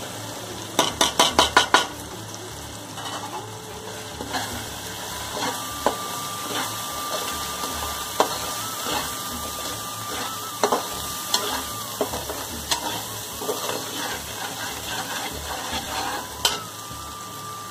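Slotted metal turner stirring and scraping a masala of onion, tomato, garlic and ginger frying in ghee in an aluminium karahi, with a light sizzle and scattered small clinks of metal on the pan as the spices are fried in. About a second in there is a quick run of six or seven sharp taps.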